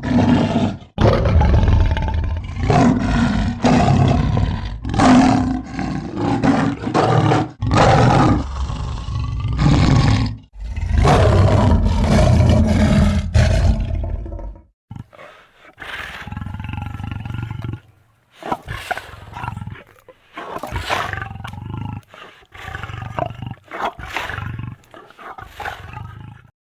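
Two leopards growling in long, loud, deep growls, one after another. About halfway through the growls turn quieter and shorter with gaps between them, and the sound cuts off abruptly at the end.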